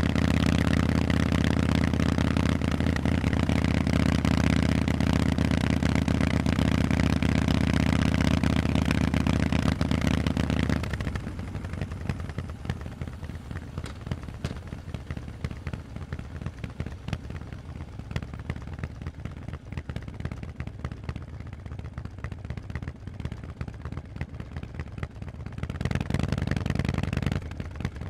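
Harley-Davidson Forty-Eight's air-cooled V-twin through Vance & Hines exhaust pipes, running loud and steady at a constant pitch, then dropping about eleven seconds in to a much quieter, uneven beat. There is a brief louder spell of throttle near the end.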